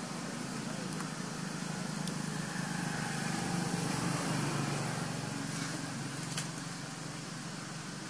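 Low rumble of road traffic that swells about halfway through and then slowly fades, with a few faint clicks.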